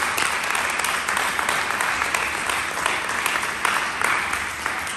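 A group of people applauding, many hands clapping together in a steady, continuous run.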